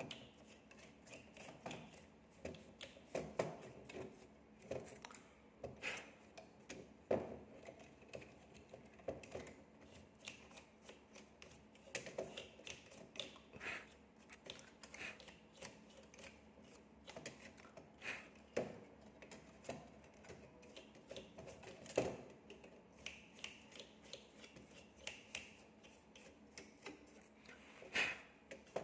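Irregular small clicks, taps and rattles of a graphics card and small tools being handled while the card is worked on, with a few sharper knocks among them.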